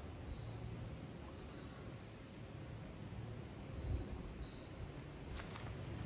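Outdoor forest ambience with a steady low rumble and three faint, short, high chirps about two seconds apart. About five seconds in, a hiker's footsteps start up on the trail with sharp crackling steps.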